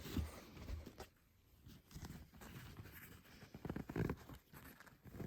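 Quiet, faint scattered rustles and soft taps of handling, with a slightly louder cluster about four seconds in.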